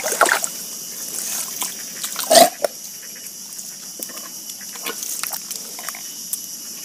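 Wet squelching and splashing of hands and feet in soft tidal mud as a wet cast net lies on it and shrimp are picked out. A few short squelches, the loudest about two and a half seconds in, over a faint trickle of water.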